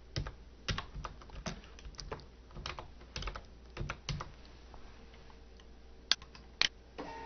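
Computer keyboard typing, about a dozen keystrokes over the first four seconds, then two sharp mouse clicks on the Print button. Right at the end a DYMO LabelWriter label printer starts feeding a label.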